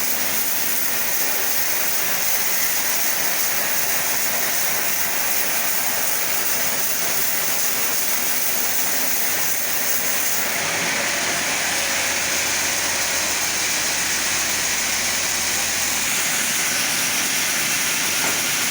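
Chainsaw running steadily at full throttle as it cuts lengthwise through a sapodilla log. The tone shifts about ten seconds in, becoming brighter with a low rumble added for several seconds.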